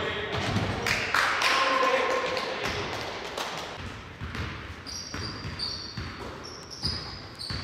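A basketball bouncing repeatedly on a hardwood gym floor as it is dribbled, with rubber sneaker soles giving short high squeaks in the second half.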